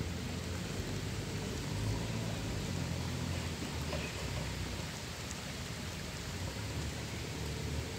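Light rain falling steadily on a lake's surface and its water-lily leaves, an even hiss of drops, with a steady low rumble underneath.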